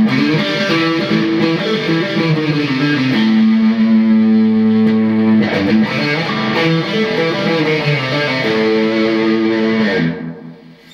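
Semi-hollow electric guitar with P90 pickups, played through an EVH 5150 amp's overdriven blue channel: distorted chords and single notes let ring for a second or more each, stopping about ten seconds in.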